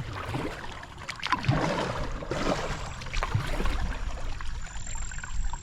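Canoe paddle working the water: irregular dips, splashes and drips against the hull.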